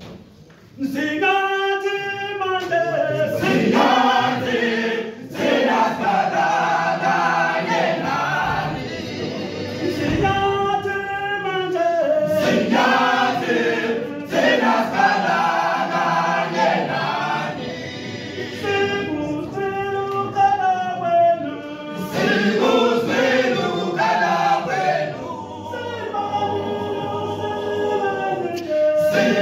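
An all-male a cappella choir singing in Zulu in isicathamiya style, many voices in close harmony with no instruments. The singing starts about a second in, in phrases with short breaks between them.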